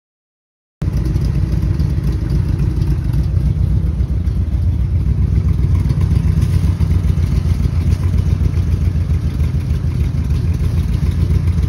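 C3 Corvette V8 running steadily at idle through side pipes with reverse-flow mufflers, starting about a second in.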